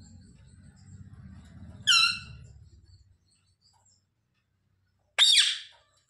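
Rose-ringed (Indian ringneck) parakeet giving two short, loud calls, about two seconds in and again about five seconds in; the second is noisier and falls in pitch. A faint low rumble sits underneath through the first half.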